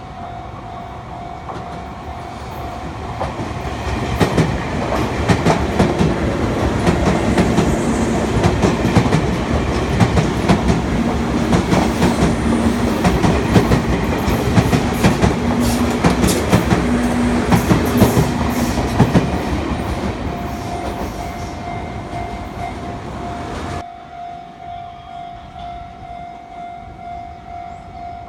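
A Sotetsu Line electric train passing over a level crossing, its wheels clicking over the rail joints, with the crossing's warning bell ringing a steady tone. The train noise builds about four seconds in, carries a low steady hum in the middle of the pass, then eases. It cuts off abruptly near the end, leaving the bell ringing on.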